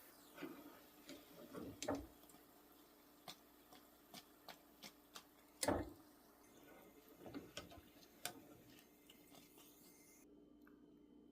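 Scattered light clinks and knocks of kitchen utensils and dishes being handled, the loudest knock about halfway through.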